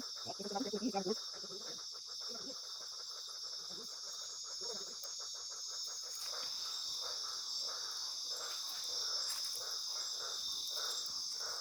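Night chorus of crickets and other insects, a steady high-pitched drone, with a softer run of evenly repeated pulses in the second half.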